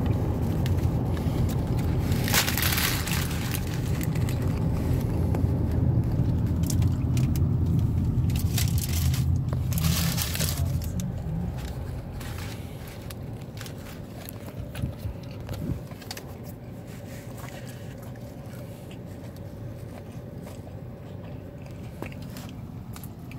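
Close-up biting and chewing of a burger, with a couple of loud crunchy, crinkly bursts, over the low rumble of a car that dies down about halfway through.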